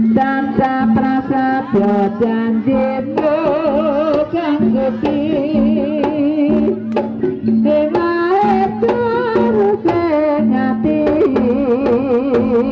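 Live kuda kepang horse-dance music: a melody that bends and wobbles in pitch over a steady low drone and drum beats.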